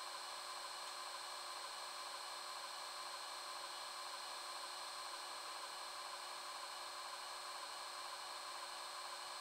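H0-scale model train running along the layout track: a steady, high-pitched motor hum with the rolling noise of wheels on rail, and a faint rhythmic pattern about twice a second.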